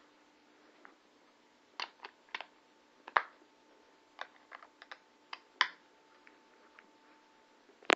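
Plastic casing and AA batteries of an Intek MT-5050 handheld radio being handled: an irregular run of small clicks and knocks, with a sharp click near the end.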